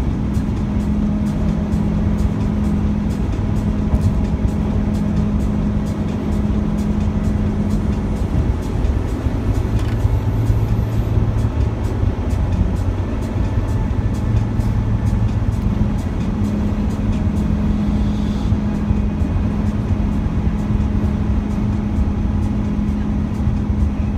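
Steady road and engine noise inside a vehicle cruising at highway speed, with a low drone that shifts pitch.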